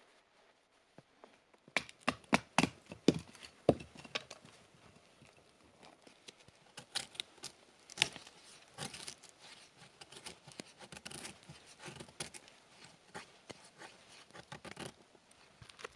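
Handling noise: a quick run of sharp clicks and knocks about two to four seconds in, then irregular rustling and crinkling with scattered clicks.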